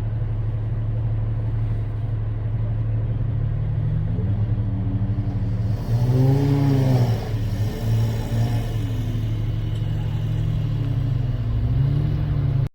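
Off-road vehicle's engine idling, then revving up about six seconds in and settling back, with a few smaller rises in revs later on.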